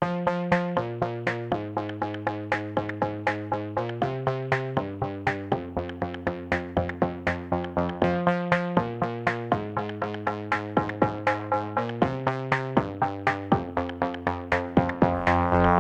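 Background music: electronic track with a steady drum-machine beat, about four hits a second, over synthesizer chords.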